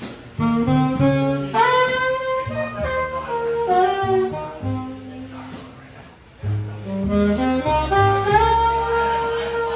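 Live jazz trio: saxophone playing a melodic phrase over plucked upright bass and light cymbal taps. The saxophone breaks off briefly about six seconds in, then comes back and ends on a long held note.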